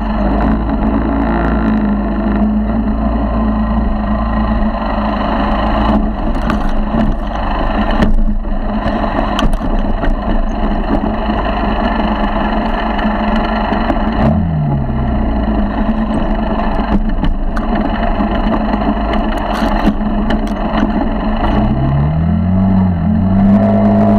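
50cc four-stroke motorized bicycle engine running as the bike rides over rough grass, with rushing noise and several knocks from the bumpy ground. The engine note dips briefly about halfway through and climbs again near the end.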